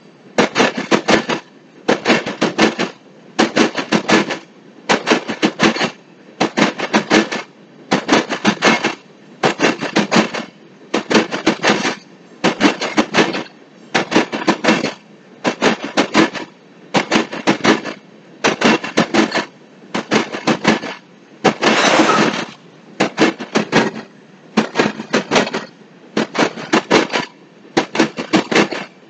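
Empty aggregate cars of a freight train rolling past, their steel wheels clacking over the rail joints in quick clusters about every one and a half seconds. One longer, louder run of clacks comes a little over twenty seconds in.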